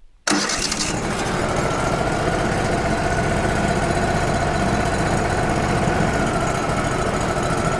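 Wood-Mizer LT35 portable sawmill's diesel engine running steadily with its machinery and blower noise, cutting in suddenly a moment in.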